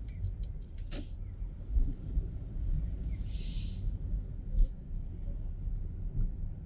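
Low rumble of a car driving on city streets, heard from inside the car. There is a sharp click about a second in and a short hiss lasting under a second a little after three seconds in.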